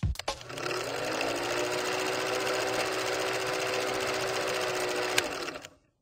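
Film projector whirring, as a sound effect under a film-leader countdown: a steady mechanical rattle with a low hum underneath and one sharp click, stopping suddenly just before the end.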